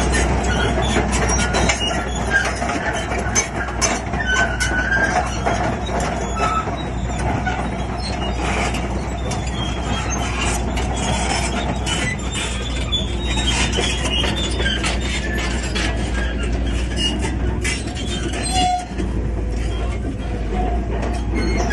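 Crawler bulldozer at work: a steady diesel drone with the steel tracks clanking and, now and then, squealing briefly.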